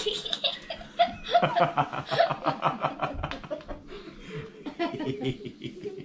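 A man and a small boy laughing hard in rapid, repeated ha-ha pulses.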